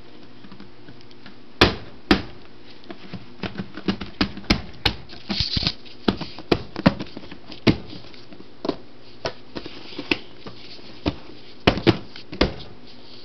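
Irregular knocks, taps and clicks of dishes and other items being shifted around inside a refrigerator. The loudest thumps come about a second and a half in and again near the end.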